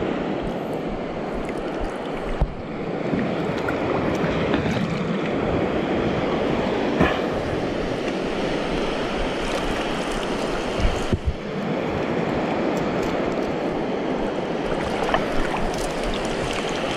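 Steady wash of shallow seawater and surf with wind buffeting the microphone, broken by a few brief knocks.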